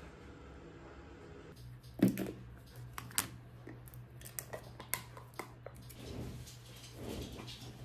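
Plastic food tub being handled and its lid snapped open: a thump about two seconds in, then a run of sharp clicks and small knocks, with a metal spoon scraping inside the tub near the end.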